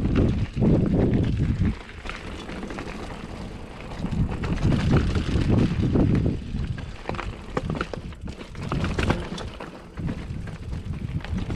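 Giant Reign full-suspension mountain bike descending a rough rocky trail: tyres and frame rattling and clattering over rock, with wind buffeting the microphone in loud surges.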